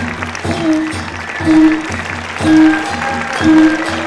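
Music with a repeated note about once a second over a bass line, with audience applause underneath.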